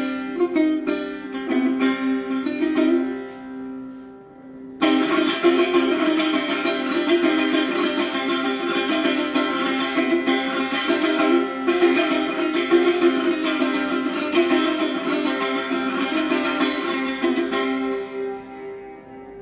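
A long-necked fretted lute played solo, a picked melody over steady drone strings. It quietens briefly, then from about five seconds in breaks into a loud, fast passage of rapid plucking that tails off near the end.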